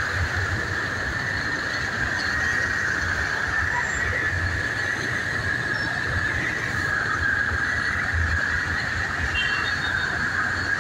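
Steady running of vehicle engines in slow traffic on a flooded road, with auto-rickshaws pushing through standing water. The sound is an even rumble with a constant high whine and no breaks.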